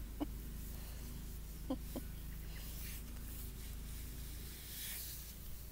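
Faint distant radio music, with a few short animal calls: one just after the start and two close together a little under two seconds in.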